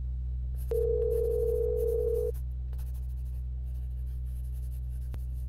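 Steady low electrical hum. A louder, higher buzzing tone with a faint crackle joins it for about a second and a half near the start, and a single faint click comes near the end.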